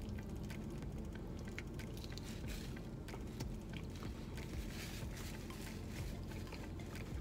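A person chewing Taco Bell food close to the microphone, with scattered small mouth clicks and crunches over a steady low hum.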